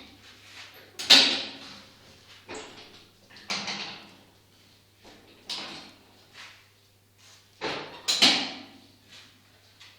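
Homemade cyclone dust collector being handled and opened to check the debris it caught, with the vacuum switched off: a series of separate scrapes and knocks, the loudest about a second in and again around eight seconds in.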